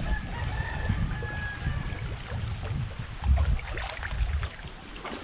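Outdoor ambience of wind rumbling on the microphone and water lapping, uneven low buffeting under a steady faint high hiss.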